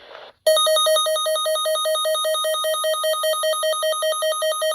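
Electronic alert tone of an Emergency Alert System broadcast: a loud, rapidly pulsing beep at about seven pulses a second, starting sharply about half a second in after a brief faint hiss.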